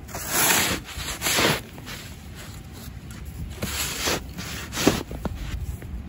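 Snow being cleared by hand around a car: swishing, scraping strokes, two long loud ones in the first second and a half, then shorter ones about three and a half to five seconds in.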